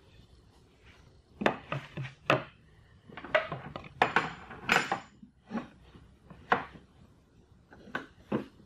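Irregular sharp knocks and clacks of wood and metal on a wooden workbench as a plywood panel is set upright and clamped and hand tools are handled, about fifteen in all over some seven seconds, with a brief metallic ring about four seconds in.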